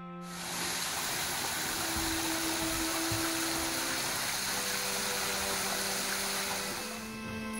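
Water spilling over a low stone weir into a small stream, a steady rushing noise that stops near the end. Soft instrumental background music runs underneath.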